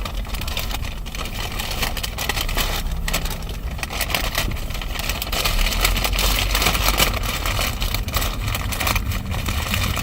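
Car interior noise while driving: a steady low rumble of engine and road, with irregular rustling and crackling close to the microphone.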